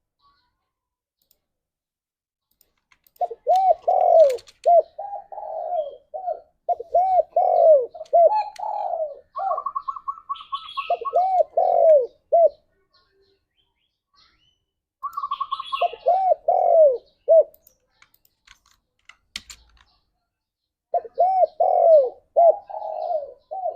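Spotted dove cooing in three bouts of rapid repeated coo notes, the first two each broken by a quick run of higher notes. There are silent pauses between the bouts.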